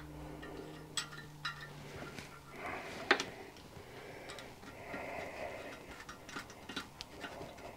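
Small metallic clicks and light scraping of a hand-held helicoil insertion tool as a thread insert is wound into a tapped hole in an engine casting, with one sharper click about three seconds in.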